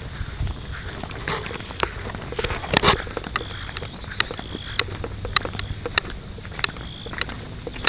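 Footsteps of someone walking on a path, a step about every 0.6 seconds, with a louder scuffle about three seconds in, over a steady low rumble of wind or handling noise.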